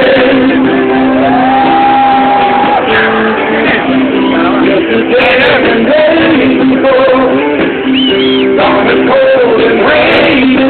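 Rock band playing a song with a lead singer over guitar; the singer holds a long note about a second and a half in. The recording is loud and dull-toned, cut off above the upper midrange.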